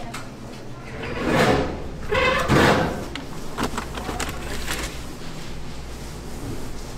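A stainless-steel kitchen drawer slides out with two rushing scrapes, then a paper flour sack rustles with small clicks as it is scooped into.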